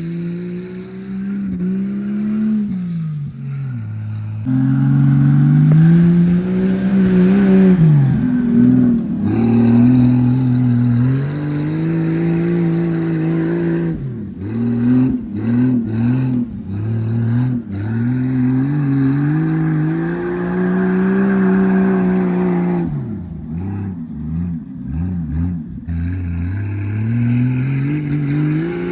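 Jeep engine revving up and down repeatedly as it drives under load, with stretches of quick on-off throttle blips about halfway through and again near the end.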